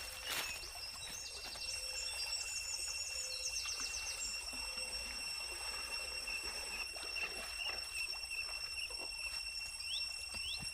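Tropical forest ambience: a steady high insect tone with bird chirps and quick trills about three seconds in and short rising chirps near the end, over a steady hiss.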